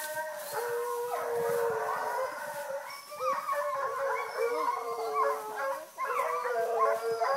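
A pack of hounds baying and howling together, several voices overlapping in long, wavering cries.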